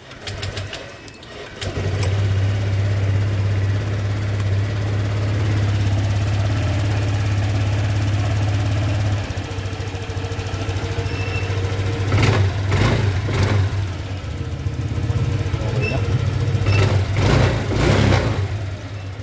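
Honda Click 125 V2 scooter's single-cylinder 125 cc engine started up on a fresh spark plug, catching just under two seconds in and then idling steadily. A few short, louder bursts come past the middle.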